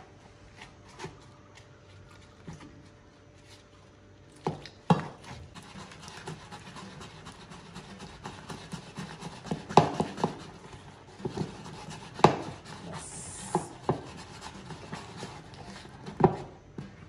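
A bare hand mixing gram-flour (besan) pakora batter in a plastic bowl: low rubbing with irregular sharp slaps and knocks, a handful of them much louder.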